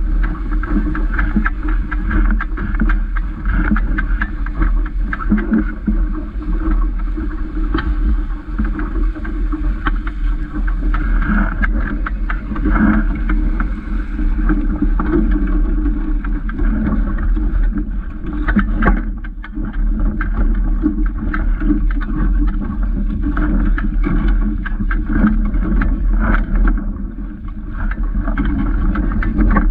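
Water rushing and slapping against the hull of a small sailing dinghy under way, with steady wind buffeting on the microphone.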